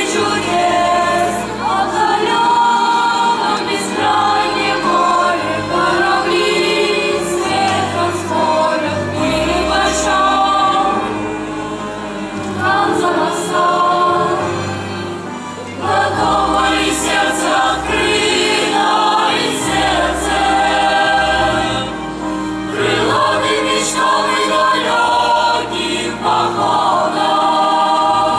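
Boys' and youths' choir singing a song in phrases, with short breaths between them.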